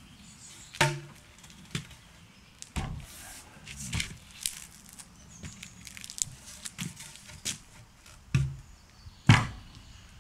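Wooden knocks and thuds from a squared timber beam being lifted upright and bumped into place, about a dozen irregular hits with a short hollow ring on some. The loudest come about a second in and near the end.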